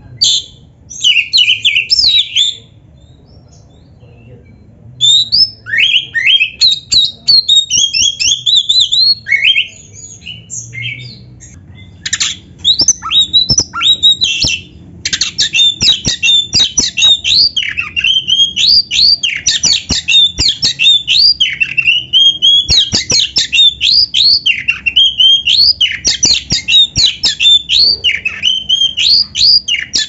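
Oriental magpie-robin (kacer) singing loudly: a short burst of high, fast notes, a pause of a couple of seconds, then a long run of quick, varied whistled and chattering phrases that grows almost continuous from about twelve seconds in.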